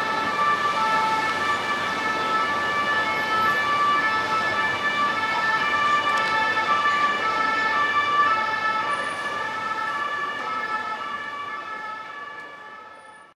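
Two-tone emergency-vehicle siren, alternating steadily between two pitches and fading away over the last couple of seconds.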